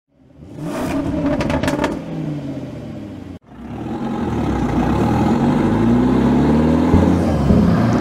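Off-road vehicle engine sound effect: the engine revving with a short rattling clatter, cut off abruptly about three and a half seconds in, then revving again with its pitch rising and falling as it gets louder.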